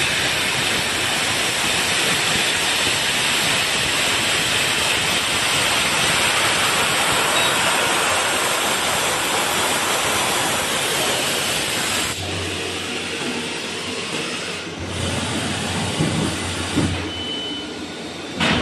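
CNC machine tool cutting iron: a loud, steady hissing noise that cuts off suddenly about twelve seconds in, leaving a quieter low hum with a few irregular machine sounds.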